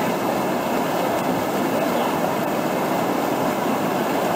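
Loud, steady rush of whitewater pouring over a standing river wave.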